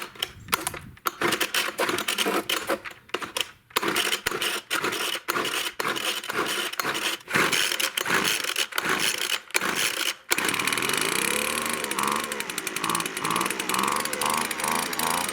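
Gas-powered leaf blower being pull-started: repeated yanks on the recoil starter cord for about ten seconds, then the engine catches suddenly and keeps running steadily.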